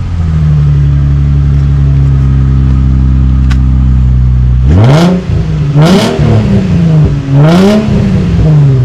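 Nissan 350Z's 3.5-litre V6 idling steadily through a newly fitted aftermarket exhaust, then revved three times about a second apart, each rev rising in pitch and dropping back to idle. A single sharp click is heard shortly before the revs.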